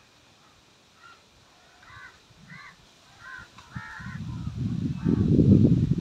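Crows cawing, a string of short calls about every half second. From about four seconds in, a loud low rumble of buffeting on the microphone covers them.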